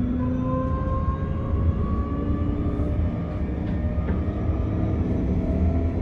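Tram running, with a steady low rumble and the whine of its electric motors slowly rising in pitch as it picks up speed.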